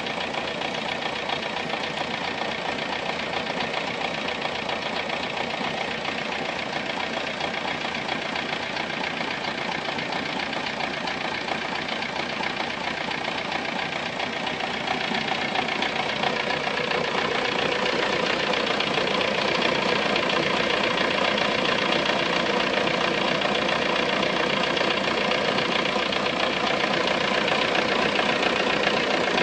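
Volkswagen Golf Mk3 engine idling steadily, with a somewhat strange noise in its running. It gets a little louder about halfway through.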